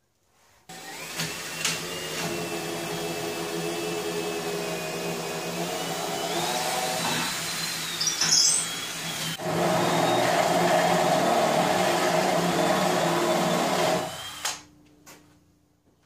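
Electric motor running continuously for about 13 seconds, a steady hum with a high whine that shifts in pitch a few times. It gets louder about nine seconds in, with a brief high squeal just before, and stops suddenly near the end.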